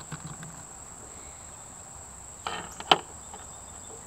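Small clicks and light rattles of arrow parts (plastic vanes, a metal field point and insert) being picked off the metal pan of a pocket digital scale, with the sharpest click about three seconds in. A steady high-pitched whine or insect-like trill runs underneath.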